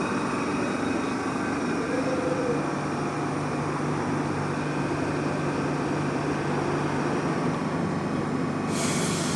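Merseyrail electric train running at the station, with a steady low hum and high electrical whines over rumbling noise. A sudden loud hiss starts near the end.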